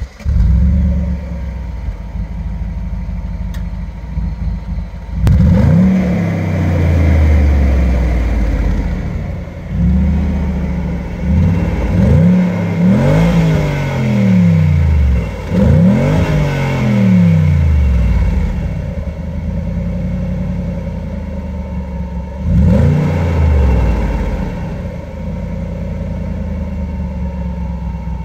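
Audi A6 C5's 4.2-litre V8 exhaust, heard at the twin tailpipes: idling, then a long rev about five seconds in, followed by a run of quick throttle blips and one more later, the pitch rising and falling with each before it settles back to a steady idle.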